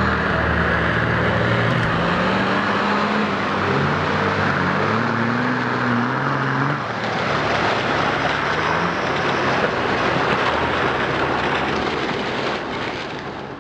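Off-road 4x4 truck engine revving as it churns through deep water and mud, its pitch rising and falling, under steady splashing and spraying water. The sound fades out near the end.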